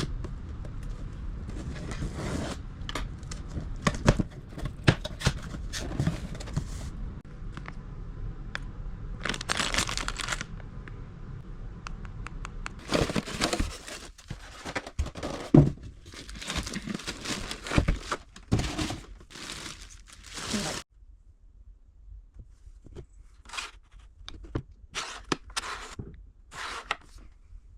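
Sewing machine packaging being unpacked from its box: tearing, crinkling and rustling of packing material, with scattered knocks and scrapes. About two-thirds of the way through, the handling sounds drop abruptly to quieter, sparser rustles.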